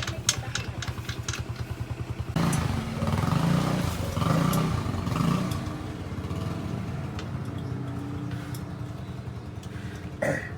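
A motorcycle engine idling with an even pulse. About two seconds in it gets louder for a few seconds, its pitch wavering, then it settles back to idle. A short knock comes near the end.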